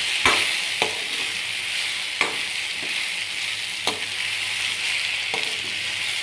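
Chopped vegetables (green chillies, tomatoes, carrot and onion) sizzling steadily as they fry in hot oil in a pan. A steel spoon stirs them, knocking and scraping sharply against the pan about five times.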